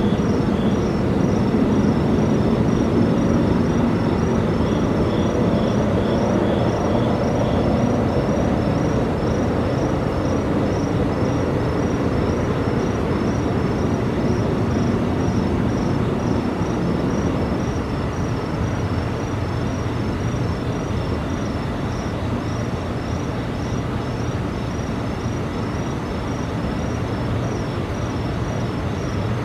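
A low, steady rumbling drone that slowly fades: a mysterious noise of unknown source that went on for a long while, starting and stopping. Insects chirp in an even pulse above it.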